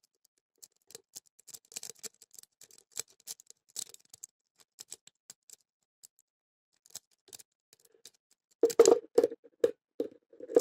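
Lock pick and tension wrench working in the small keyway of a brass Beorol padlock: irregular light clicks and scrapes as the pins are raked and set, with a louder stretch near the end.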